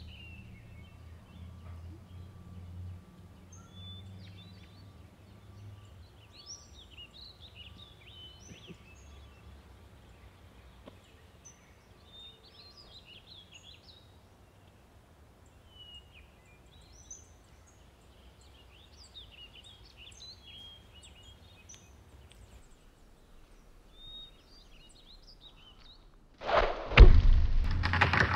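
Small birds chirping and calling here and there over faint steady outdoor background noise. About two seconds before the end, a sudden loud, rough noise breaks in and keeps going.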